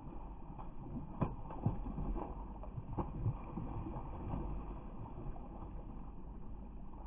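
A hooked trout thrashing and splashing at the water's surface as it fights the line, with a few sharper splashes about a second in and again around three seconds, over a low rumble. The sound is dull and muffled.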